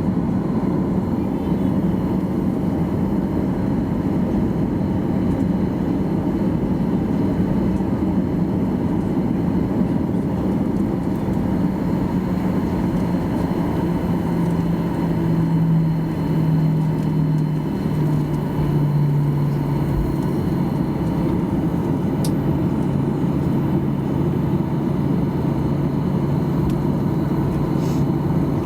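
Steady cabin rumble inside a Boeing 737-800 from its CFM56 jet engines, with a low hum that drops in pitch in a couple of steps about two-thirds of the way through.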